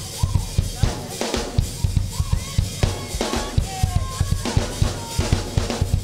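Drum kit playing a fast, steady beat on bass drum and snare, with a faint wavering melody line over it.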